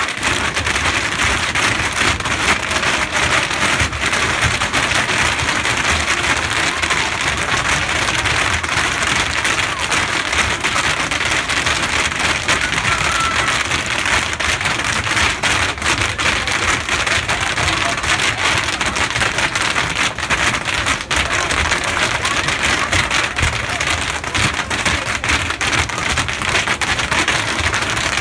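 Bubble wrap being stomped on: a dense, continuous crackle of many small pops, steady throughout.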